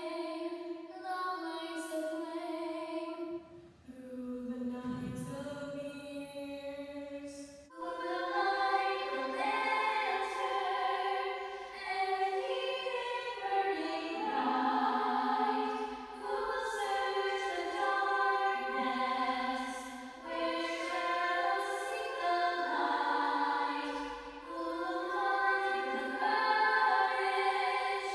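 A choir of girls' voices singing a song, put together from separately recorded home performances. It starts thinner, with fewer voices, and swells into fuller harmony about eight seconds in.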